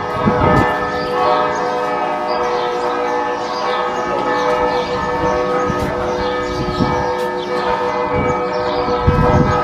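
Church bells ringing continuously, many tones overlapping into a steady peal.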